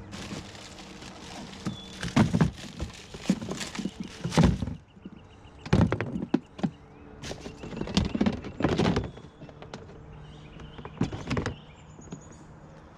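Plastic storage totes and lids being handled and stacked: clusters of knocks and thuds in about five bursts, with short pauses between.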